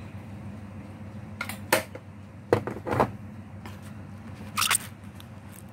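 A few short, sharp clicks and knocks of a small plastic salt container and spoon being handled and put down, over a steady low hum.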